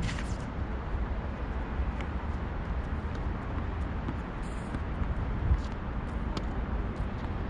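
Tennis balls struck by rackets and bouncing on a hard court: a few sharp pops, the loudest about two-thirds of the way through. A steady low rumble runs underneath.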